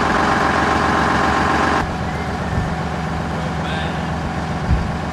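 Engine of a WWII-era military vehicle running, heard from on board. A high, dense whine sits over it for the first two seconds and then cuts off, leaving a steady low engine rumble.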